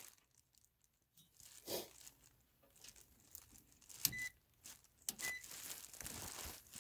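Faint clicks and rustling of multimeter probes and leads being handled and put to a furnace hot surface igniter's terminals, with two short high beeps about a second apart past the middle.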